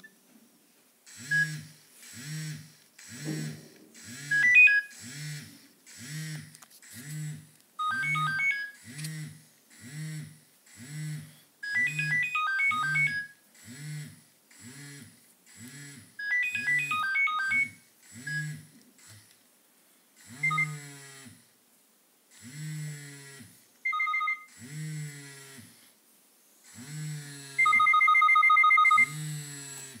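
Nokia 6600 mobile phone's loudspeaker playing short polyphonic ringtone previews: quick runs of high electronic melody notes, then a few single beeps, and near the end a rapid two-note beeping. Under them runs a low pulsing about every half second, slowing in the second half.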